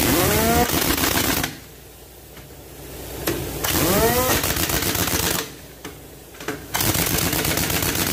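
Pneumatic impact wrench driving a truck's wheel nuts, run in three bursts of rapid hammering. The first two bursts each start with a rising whine as the tool spins up.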